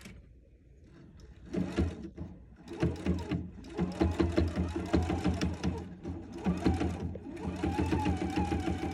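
Husqvarna Viking sewing machine stitching binding onto fabric. It starts with a short spurt about a second and a half in, then runs steadily with the needle's quick rhythmic stitching, stopping briefly a couple of times.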